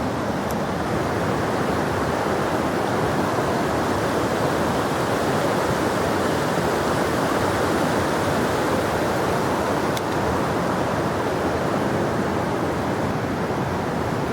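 Spring-fed stream rushing steadily over rocks, an even, unbroken rush of water.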